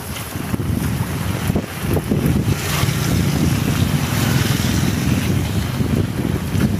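Heavy rain falling, with wind buffeting the microphone in a low, uneven rumble.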